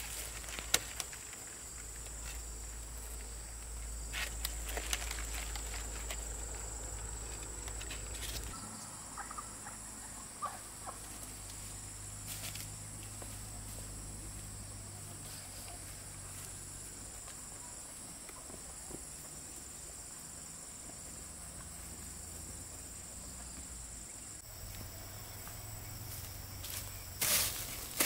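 Insects buzzing steadily at a high pitch, with scattered rustles and clicks; the buzzing cuts off suddenly about 24 seconds in, and a few louder clicks follow near the end.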